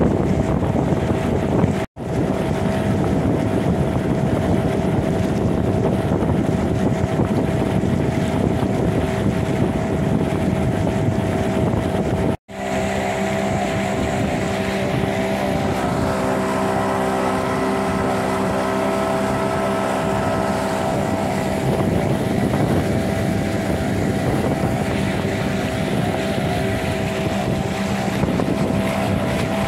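Outboard motor of a chaldonka, a long wooden river boat, running steadily at cruising speed, with wind buffeting the microphone. The hum cuts out for an instant twice, about two seconds in and again about twelve seconds in.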